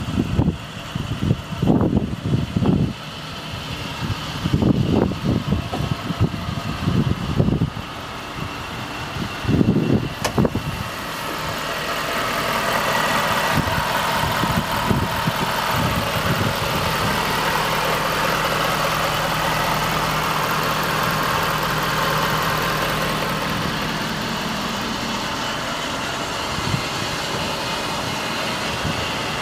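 Irregular thumps and knocks for about the first ten seconds, then the Ford F-550's 6.7-litre diesel V8 idling steadily, heard close up at the open engine bay.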